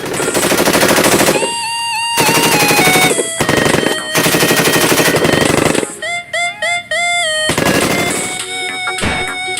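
Electronic toy gun sound effect: several bursts of rapid machine-gun fire, alternating with short stepped beeping tunes about one and a half seconds and six seconds in.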